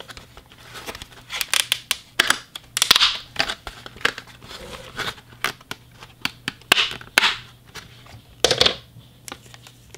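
Clear plastic packaging being handled and opened: the stiff plastic cover clicks and scrapes against the tray, and thin plastic wrap crackles. It comes in irregular bursts, loudest about three seconds in and twice more near the end.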